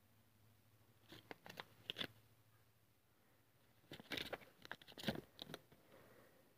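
Crinkling plastic packaging and light clicks as small items are handled, in two short flurries: one about a second in and a longer one from about four to five and a half seconds in.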